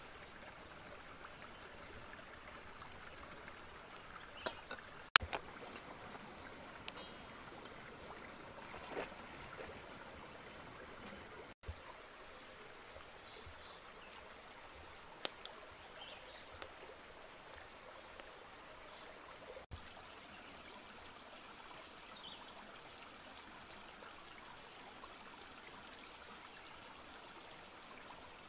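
Shallow stream trickling and flowing over rocks, a steady rushing sound. About five seconds in a sharp click is heard and a steady high insect drone sets in and continues, with a few more scattered clicks and knocks.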